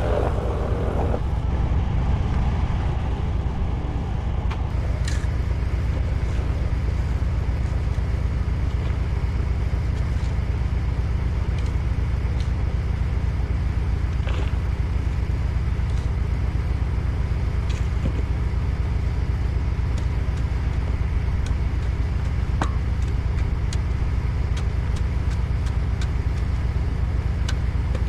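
Engine running steadily, a low even drone with a few faint clicks scattered through it.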